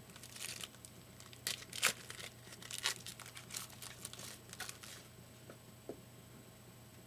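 Crinkling and rustling of trading-card packaging being handled, a string of crackles that stops about five seconds in.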